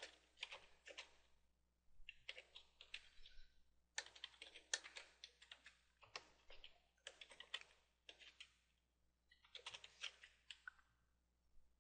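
Faint typing on a computer keyboard, in about six short bursts of keystrokes with brief pauses between them.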